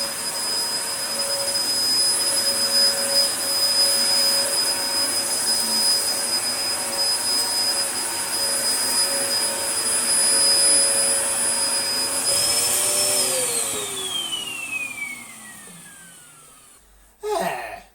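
Dyson DC01 upright vacuum cleaner running with a steady high-pitched motor whine, its filters not fitted. About twelve seconds in it is switched off and the motor winds down, the whine falling in pitch over four or five seconds until it dies away.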